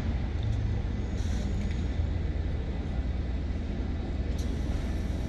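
Alstom Citadis tram running, a steady low rumble with a faint thin whine above it.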